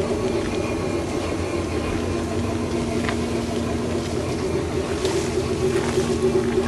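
Bachmann three-truck Shay large-scale model locomotive running along garden track: a steady mechanical hum from its motor and gearing, with a few faint clicks.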